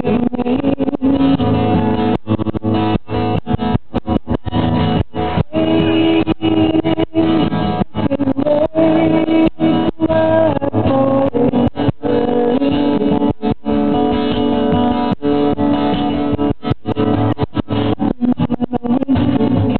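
Song with guitar playing, likely an instrumental passage between verses.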